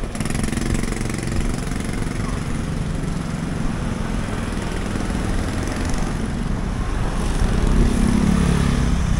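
Street traffic: motorcycle engines, including motorcycle-and-sidecar tricycles, passing close over a steady traffic hum. A scooter engine grows louder near the end.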